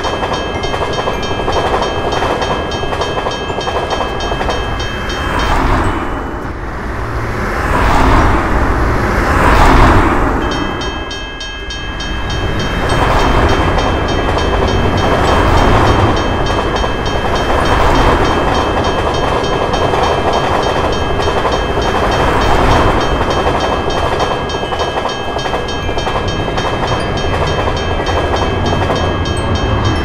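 Railroad crossing bell ringing rapidly while a passenger train rumbles through the crossing. The bell drops out for a few seconds about a fifth of the way in while the train noise swells twice, then starts again and rings on over the passing train.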